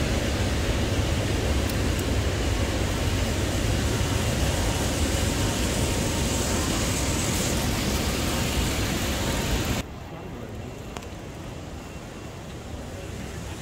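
Steady low rumble and hiss of a busy terminal hall, with the noise of a phone being carried. It drops abruptly to a quieter hiss about ten seconds in.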